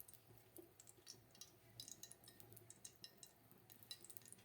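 Faint, scattered crackling and ticking of cooking oil heating in a karahi.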